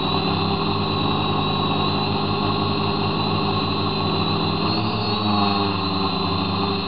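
A model aircraft's motor and propeller, heard through its onboard camera, humming steadily in flight, with a brief shift in pitch about five seconds in.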